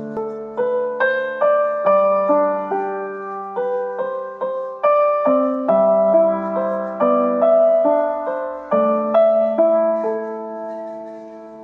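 Solo piano intro to a sad rap song: a slow, gentle melody of single struck notes, each ringing and fading over held low notes, growing softer and dying away near the end.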